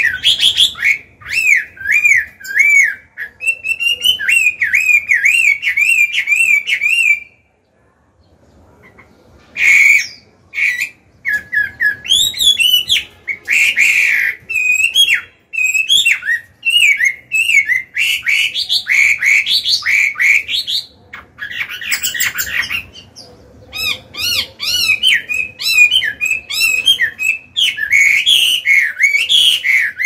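Chinese hwamei (Garrulax canorus) singing loudly in a mature, full voice: long varied phrases of rich whistles and strings of quickly repeated rising-and-falling notes. The song breaks off for about two seconds around eight seconds in, then resumes.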